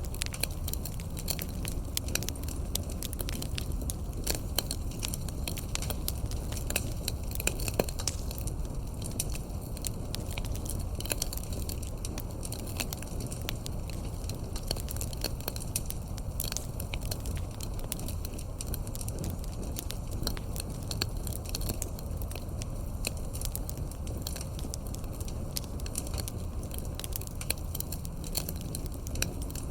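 Wood fire crackling: many small, irregular pops and snaps over a steady low rumble.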